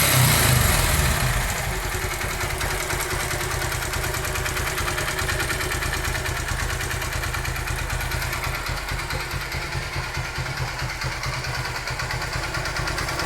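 Single-cylinder engine of a 2008 Honda CG 150 Titan motorcycle running, dropping from a higher speed to a steady idle in the first second or two. It has an engine noise caused by a scored piston from lack of lubrication, a clogged oil passage.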